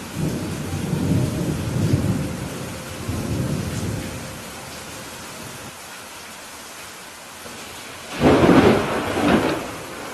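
Steady rain with thunder: a low rolling rumble for the first four seconds or so, then a sudden, loud thunderclap about eight seconds in.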